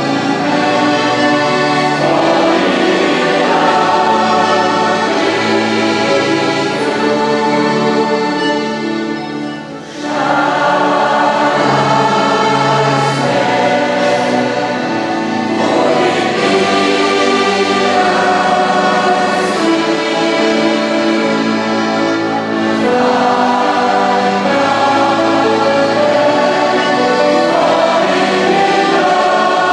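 Mixed choir singing, accompanied by an ensemble of accordions and a grand piano. The music eases off briefly a little under ten seconds in, then picks up again.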